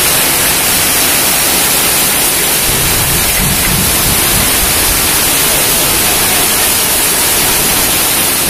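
Heavy rain pouring steadily, an even, loud hiss of drops on clay roof tiles and a wet concrete courtyard.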